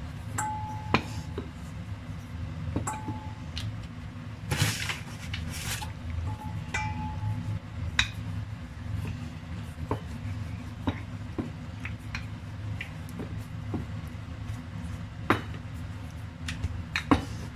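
Wooden rolling pin working dough wrappers on a counter, giving scattered sharp knocks and clicks as it is rolled, set down and picked up, with a few light clinks. A steady low hum runs underneath.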